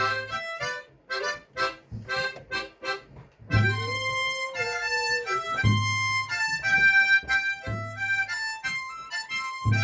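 Harmonica playing a melody over a backing accompaniment. Short, detached notes give way after a brief break to longer held notes, with a low beat about every two seconds.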